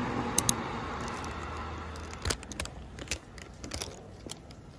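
Paper bag crinkling in the hand as it is opened: a scattering of short, sharp crackles over a faint steady hum that fades after about two seconds.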